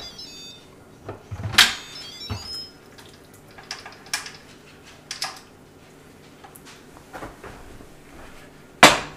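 Instant Pot electric pressure cooker's lid being twisted open and lifted off, with clicks and clunks of the lid. There are two short runs of high electronic beeps, one right at the start and another about two seconds in, and a sharp knock near the end.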